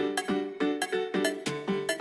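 Background music: a quick, steady run of bright plucked notes.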